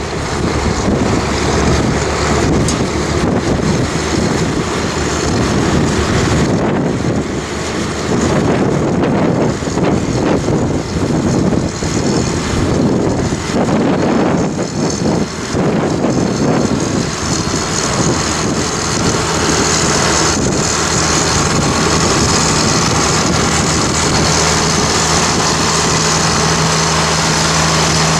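Diesel tractor engine working under load while ploughing, with strong wind buffeting the microphone. The wind gusts dominate at first; in the second half the engine note becomes a steady, clearer tone.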